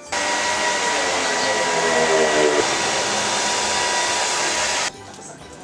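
Small electric motor appliance used for cleaning, such as a handheld vacuum or blower, running steadily with a whining note over a rush of air. It starts abruptly and cuts off suddenly near the end.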